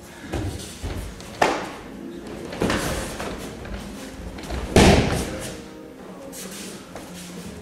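Bodies hitting a padded dojo mat: a student taking repeated breakfalls as he is thrown, giving several heavy thuds about a second apart, the loudest a little past halfway.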